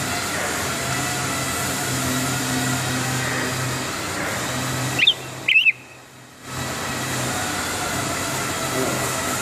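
Steady machine hum with several fixed pitches, like a motor or fan running. About five seconds in come two short, high chirps that bend in pitch, and then the sound drops out for about a second before the hum returns.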